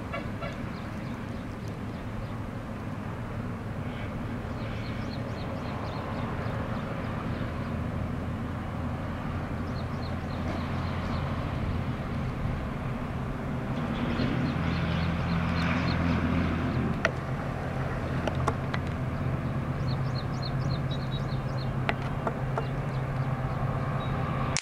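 EMD WDG4 diesel-electric locomotive's two-stroke V16 engine pulling a loaded container freight train up a grade: a steady low drone that grows louder as the locomotive draws nearer.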